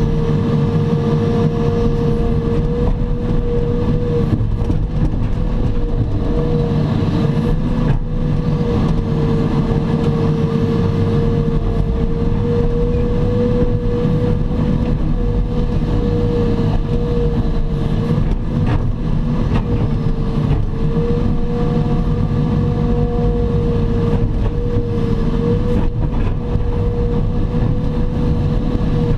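Diesel engine of a heavy earthmoving machine running steadily under working load, with a constant whine above the engine note.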